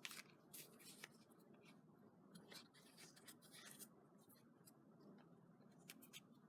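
Faint rustling and light ticks of paper craft pieces being handled and set in place, scattered irregularly with a small cluster near the end.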